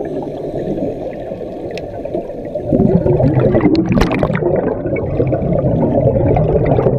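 Air bubbles and churning water heard with the microphone underwater: a muffled, dense bubbling, louder from about three seconds in.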